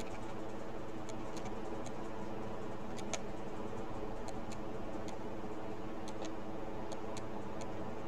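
Computer mouse clicking in scattered single and paired clicks, heard over a steady electrical hum.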